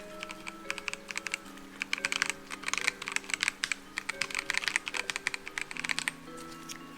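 Typing on a Melgeek Mojo68 mechanical keyboard with Gateron Pro yellow switches: scattered key clacks at first, then a fast run of keystrokes for about four seconds, over soft background music.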